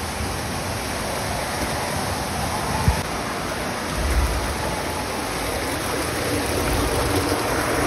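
Water rushing steadily down an enclosed plastic tube water slide, a constant even splashing hiss, with a single brief click about three seconds in.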